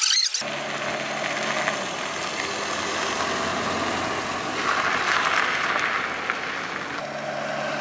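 Maruti Suzuki 800 hatchback's small three-cylinder petrol engine running as the car drives along a road, with road noise swelling briefly as it passes, then settling to a steady idle near the end.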